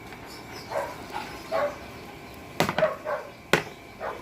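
A dog barking in several short barks, with two sharp clacks about a second apart past the middle.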